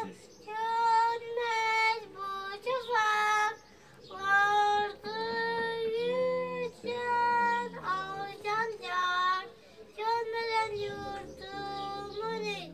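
A young boy singing a song in a high child's voice, holding long notes phrase by phrase, with short breaths between phrases.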